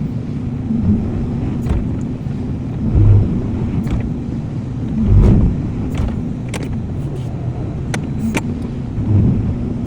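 Excavator engine running steadily, with two heavier thuds about three and five seconds in and several sharp metallic clanks.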